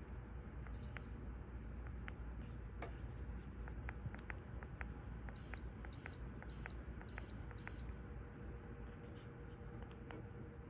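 Dreo space heater's control panel beeping as its buttons are pressed: a single short high beep about a second in, then five beeps in a row about every half second, each with a faint button click, over the heater's low steady hum.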